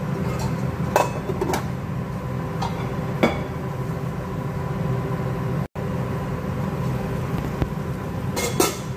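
A steady low mechanical hum in a kitchen, with a few sharp clinks of cookware: a pot and its aluminium lid handled on a gas stove. The sound cuts out for an instant a little past the middle.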